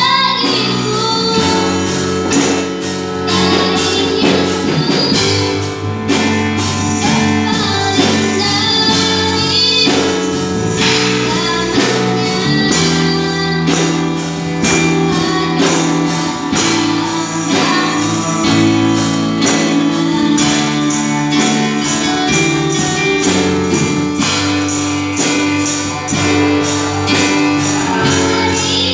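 A song with singing over a band, with a steady tambourine beat and guitar.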